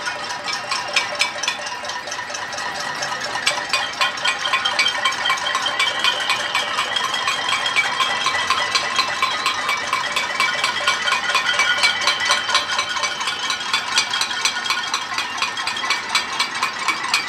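Many residents banging pots, pans, basins and spoons from their apartments at once: a dense, irregular clatter of ringing metal clanks, the sound of a nightly noise protest. A high held tone runs through the middle for several seconds.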